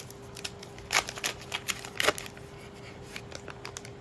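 Trading cards being handled and flipped through: a run of soft flicks and clicks, with two louder snaps about one and two seconds in, over a faint steady hum.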